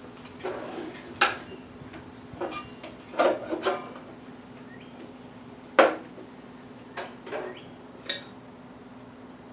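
Irregular clatter and knocks, about eight in all, of a length of crown molding being handled and set against the table and fence of a compound sliding miter saw. The loudest knock comes about six seconds in.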